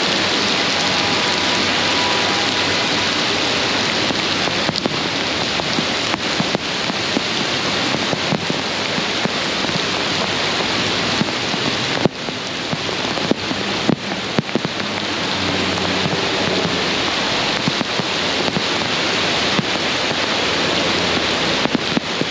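Heavy rain pouring down, a loud steady hiss with sharp ticks of drops striking close by. The sound dips briefly about halfway through.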